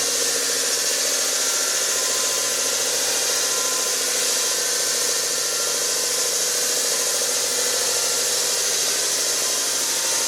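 18-inch HP lapidary slab saw running steadily, its dull diamond blade grinding through a stone with an even hiss. The motor is under heavy load from the dull blade.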